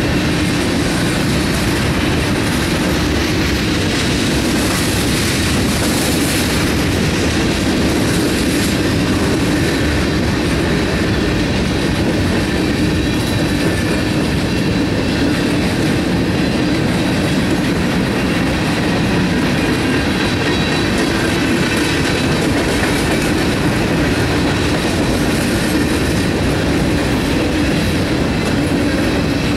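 Freight train cars rolling steadily past on the rails, a continuous rumble of steel wheels on track.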